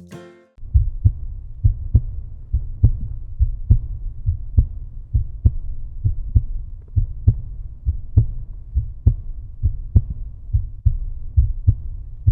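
Outro music: a short pitched phrase ends, and about half a second in a steady deep beat with a bass line starts, running at roughly two beats a second.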